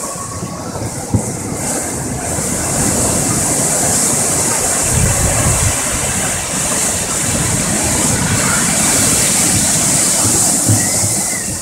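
Rough sea surging against a sea wall: a continuous rush of churning white water, growing louder about three seconds in as a bigger wave comes through.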